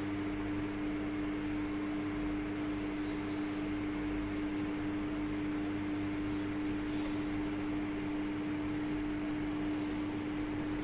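A small electric motor running steadily: an even hum under a constant hiss.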